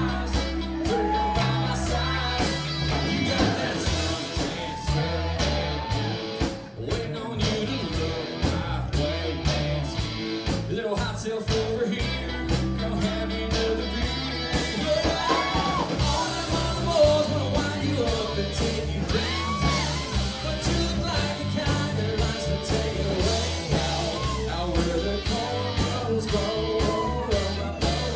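Live rock band playing a song: a steady drum beat, electric guitars and bass under a singer's voice.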